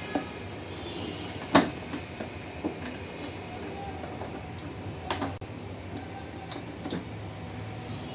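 Sharp plastic clicks and knocks from handling and unclipping the inline filter cartridges of an RO water purifier, over a steady background hiss. The loudest knock comes about a second and a half in, another near five seconds.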